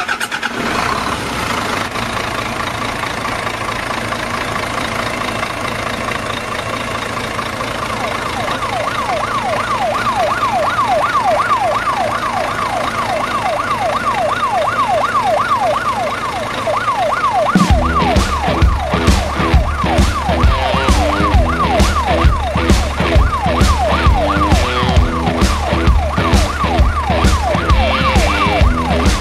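Siren sound effect, a rising yelp that repeats a few times a second, over a background music track whose steady drum beat comes in about two-thirds of the way through.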